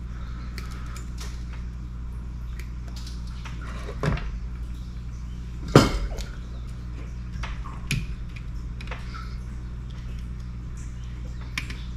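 Small hand tools, wire strippers and side cutters, being handled and set down on a wooden desk. Scattered clicks and knocks, the loudest about six seconds in, over a steady low hum.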